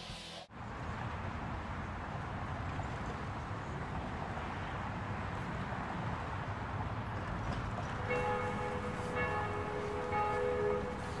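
Guitar music cuts off about half a second in, giving way to a steady low rumble of street ambience. About eight seconds in, church bells start ringing over it, several pitches sounding.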